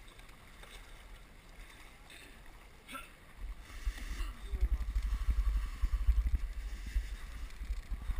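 Wind buffeting the camera microphone: a gusty low rumble that starts about three and a half seconds in.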